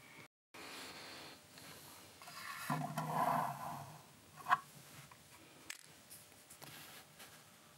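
Handling noises: rubbing and scraping for about a second around three seconds in, then a single sharp click, with a few faint ticks after.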